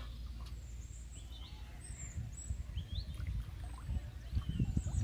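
Small birds chirping on and off over a steady low rumble, with a few louder low thumps near the end.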